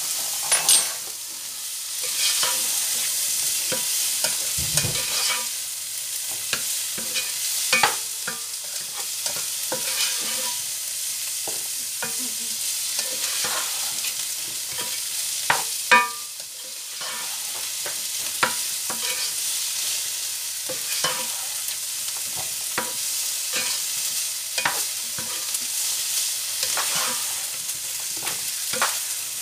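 Diced vegetables sizzling in oil in a large non-stick sauté pan as they sweat, stirred with a spatula that scrapes and taps against the pan. The sizzle is steady, with frequent short scrapes and a few louder knocks of the spatula on the pan.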